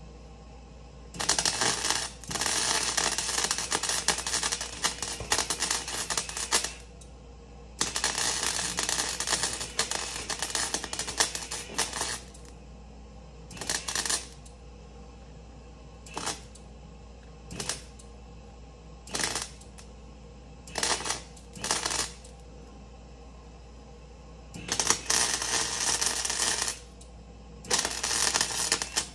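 Arc welding on a car's sheet-metal floor pan: the arc crackles in two long runs of about five and four seconds, then a string of short tack bursts, then two more runs near the end, with a faint steady hum between.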